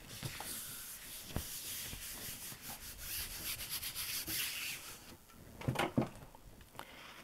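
A round hand burnisher rubbing back and forth over the back of a sheet of mixed-media paper laid on a gel printing plate, a scratchy, papery rubbing that presses the sheet down to pick up the paint and type underneath. The rubbing stops about five seconds in, followed by two short knocks.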